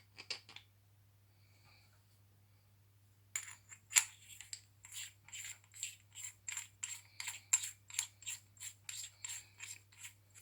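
Metal flashlight parts being fitted and screwed together: a few light clicks at the start, then from about three seconds in a regular run of about twenty sharp metallic clicks, roughly three a second. A steady low electrical hum lies underneath.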